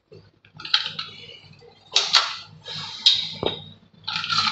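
Small plastic parts of a flush-tank inlet valve being handled and worked loose by hand: a few short scrapes and rustles and one sharp click about three and a half seconds in.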